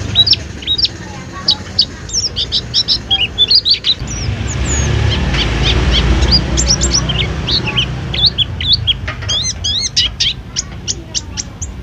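White-eye (pleci) singing a fast, varied twittering song of short high chirps and slurred notes. A low rumble runs underneath, louder in the middle.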